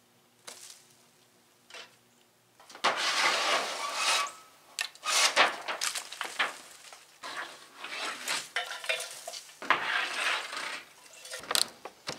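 Thin, rusted sheet-metal roofing being scraped and pried at with a hammer: irregular metallic scraping, crunching and clanking. It starts about three seconds in, after a quiet moment.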